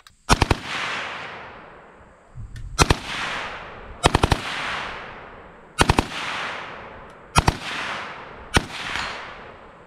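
M2 carbine in .30 Carbine firing on full auto: six short bursts of a few rounds each, at roughly a dozen rounds a second, each followed by a long echo dying away.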